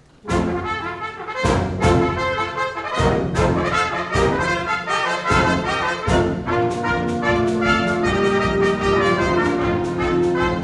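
Trumpets playing a tune together, with sharp note attacks and held notes. The playing starts suddenly about a quarter second in.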